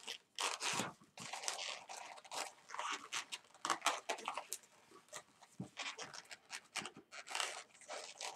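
Long latex modelling balloon rubbing and squeaking under the hands as it is twisted and threaded through a loop of bubbles, in a string of short, uneven squeaks and rustles.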